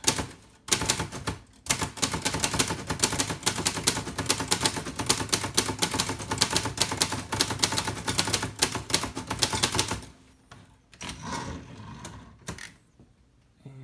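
Hispano Olivetti Studio 46 glass-key manual typewriter typing a sample in capitals: a fast, unbroken run of sharp typebar strikes lasting about nine seconds. It then breaks off into a few quieter, scattered mechanical sounds near the end.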